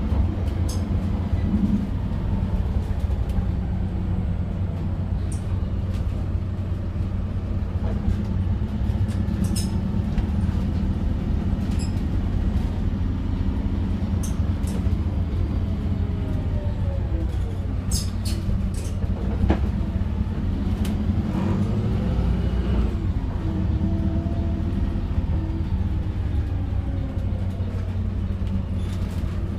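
Volvo B5RLEH hybrid bus heard from inside the cabin while driving: a steady low rumble of drivetrain and road, with a whine that glides down and back up in pitch about halfway through. Scattered sharp clicks sound throughout.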